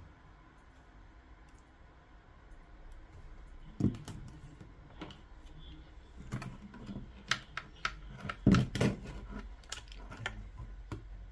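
Quiet at first, then irregular sharp clicks and light knocks of a plastic Bose SoundLink Color II speaker and small tools being handled during disassembly, growing busier and loudest a little past the middle.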